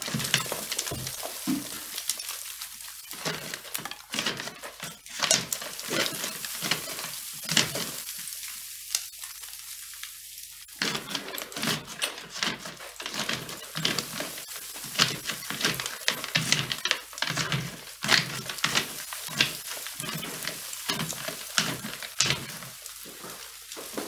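Chimney brush scraping up inside a flue, with twigs, grit and small stones rattling down into the fireplace: a dense run of irregular clicks, scrapes and small knocks.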